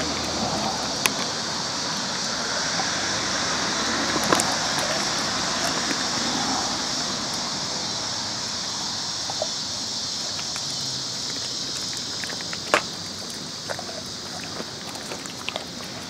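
A steady outdoor hiss with a few sharp clicks and snaps scattered through it, the loudest about thirteen seconds in, from dogs chewing and crunching pieces of raw beef oxtail bone.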